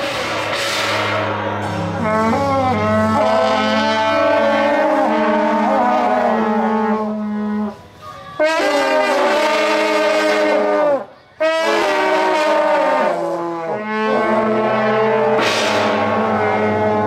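A group of long, straight metal processional horns blown together: held notes, some bending in pitch, over a steady low drone. The playing breaks off briefly twice, about 8 and 11 seconds in.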